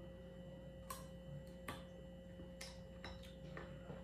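Faint chewing of firm green mango slices, heard as irregular crisp clicks and mouth sounds, over a steady low hum.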